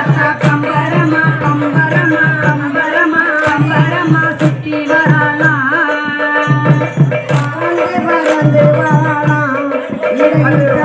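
A woman singing a Tamil folk song into a microphone, amplified, over a steady drum beat of about three strokes a second.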